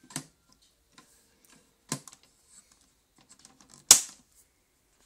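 Handling noise: three sharp clicks or knocks spread a couple of seconds apart, the last and loudest about four seconds in, with faint small ticks between them.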